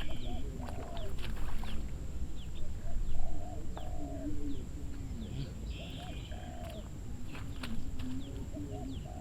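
Birds calling outdoors: repeated short, low cooing and clucking calls, with a few higher chirps over them.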